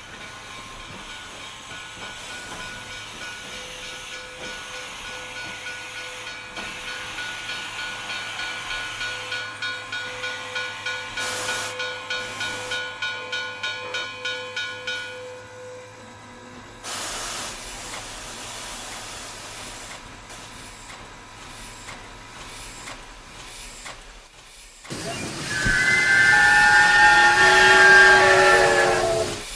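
Steam train sound effects: a held whistle-like chord over hissing, with a rhythmic chuffing pulse of about two to three beats a second through the middle. Near the end comes a loud whistle falling step by step in pitch, which cuts off suddenly.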